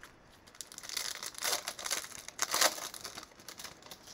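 Wrapper of a Bowman baseball card pack being torn open and crinkled by gloved hands: a run of rustling crinkles, loudest about a second and a half and two and a half seconds in.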